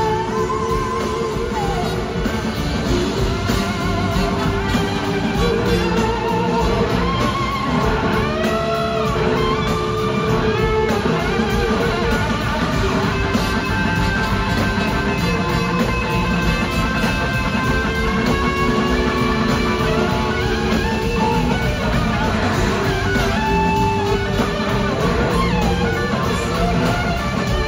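Live band playing an instrumental passage: an electric guitar lead with gliding, wavering notes over two drum kits and rhythm guitar.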